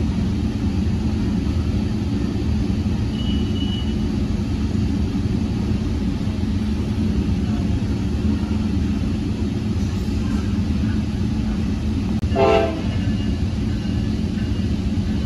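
Steady low rumble of a Tri-Rail passenger coach rolling along the track, heard from inside the car. About twelve seconds in, the train's K5LA air horn gives one short blast.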